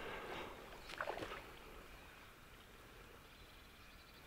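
Quiet outdoor stillness with a few faint clicks and rustles in the first second and a half, then almost nothing.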